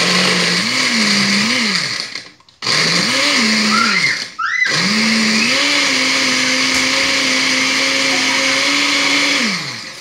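Countertop electric blender blending a mango shake, run in three goes with two short stops. Its motor pitch rises and falls as the thick mixture churns, and the last, longest run winds down near the end.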